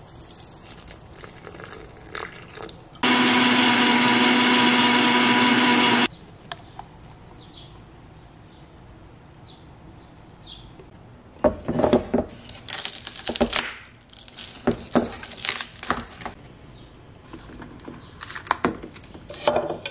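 Countertop blender running for about three seconds, blending a smoothie, then cutting off abruptly. Later, a run of sharp cracks and clacks as frozen coffee ice cubes are twisted and popped out of a plastic ice-cube tray.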